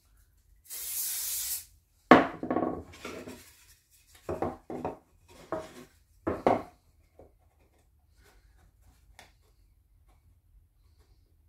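An aerosol can of CA glue activator hisses in one spray of about a second. Then two glued wooden pieces knock and rub on the plywood bench top as they are set together and pressed into a corner joint. The first knock is the loudest, and handling noises follow for a few seconds.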